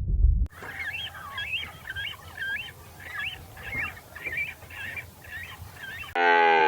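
A bird calling in a series of short, twisting chirps, about one and a half notes a second, after a low rumble cuts off about half a second in. Near the end a loud, deep cow's moo starts and is the loudest sound.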